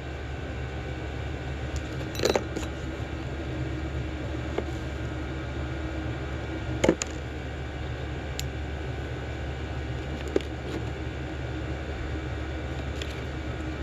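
A few light clicks and taps of small carburetor parts being handled and fitted by hand, the sharpest about seven seconds in, over a steady low background hum.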